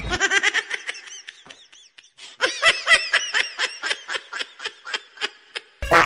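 Laughter: a quick run of short, high 'ha' bursts, about three or four a second, dying down about two seconds in, then starting up again louder until it stops abruptly just before the end.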